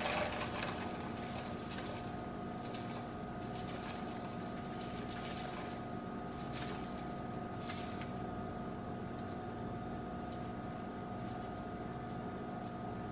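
Dry rolled oats trickling and rattling into a plastic container, clearest at the start and then only in faint scattered patches, over a steady appliance hum.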